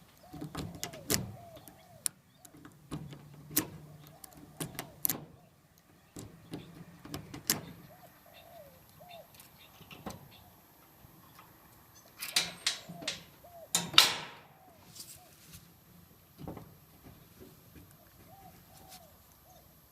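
A lock pick and tension wrench clicking and scraping in the keyway of a rusty fake-brass padlock, in scattered sharp metal clicks with a louder scraping rattle about twelve to fourteen seconds in. A bird calls repeatedly in short notes in the background.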